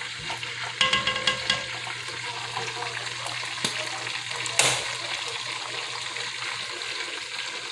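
Chicken wings frying in hot oil, a steady bubbling sizzle, with a few light metallic clinks about a second in and a sharp knock about halfway through.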